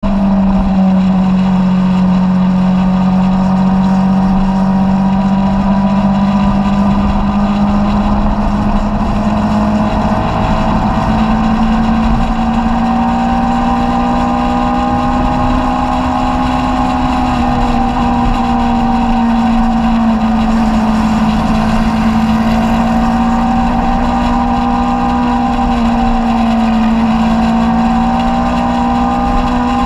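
Kawasaki Z800's inline-four engine running at a steady cruise, its pitch edging up a little about ten seconds in, with wind rushing over the microphone.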